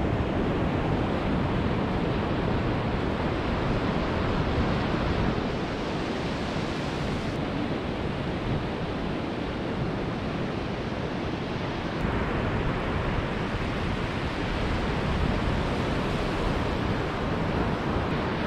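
Ocean surf breaking steadily on a sandy beach, with wind buffeting the microphone.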